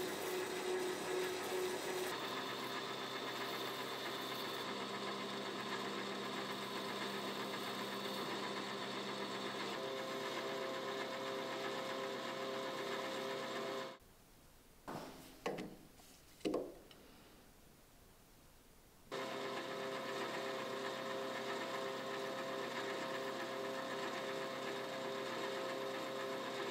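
Metal lathe running while turning aluminium stock, a steady machine hum with several fixed tones. It cuts out about halfway through for a few seconds of quiet with a few brief handling noises, then the lathe is running again.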